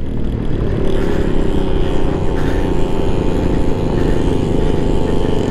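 Honda Ruckus scooter's 49 cc four-stroke single-cylinder engine running steadily at cruising speed on a gravel road, under a low rumble of wind and road noise.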